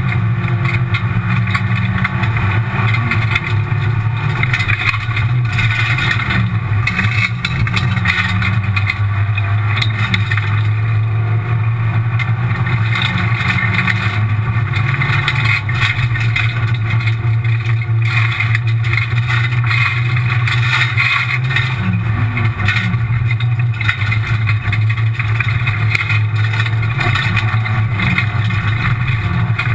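Rally car engine running hard at speed, heard from inside the stripped, roll-caged cabin, with a steady rush of gravel and tyre noise. The revs shift briefly a few times with gear changes.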